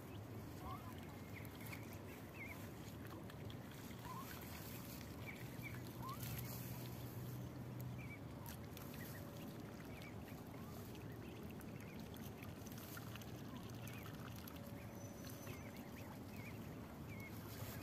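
Mallard ducklings peeping faintly now and then in short, slightly rising chirps, over a low steady background hum.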